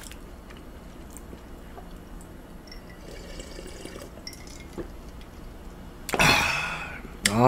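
Quiet sips and swallows of a drink from a glass mug, then a loud breathy exhale with a falling pitch about six seconds in, and a voiced "ah" starting just before the end.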